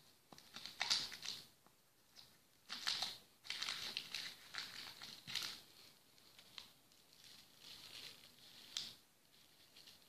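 Thin plastic crinkling and rustling as it is handled, in a run of short crisp rustles and clicks, loudest in the first half.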